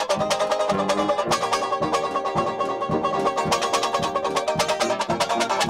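Resonator banjo strummed in fast, even chords, taking a solo in a traditional New Orleans jazz band.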